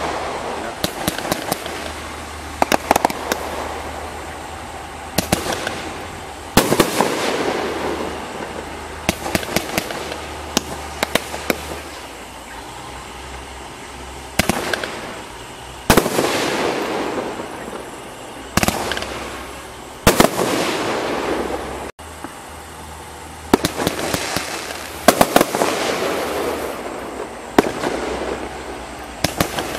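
500-gram consumer fireworks cakes firing shot after shot, a sharp report every second or two, each break followed by a fading spray of crackling pops.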